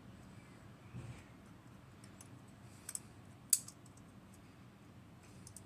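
Lever lock being picked: a few scattered light metallic clicks from the pick and tension tool working in the lock, the sharpest about three and a half seconds in, with a soft knock about a second in.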